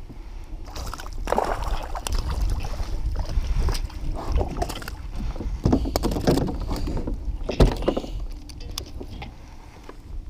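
Water splashing and handling knocks in a plastic fishing kayak as a hooked smallmouth bass is reeled in and brought aboard: irregular splashes, rustles and clicks, with one sharp knock, the loudest sound, about eight seconds in.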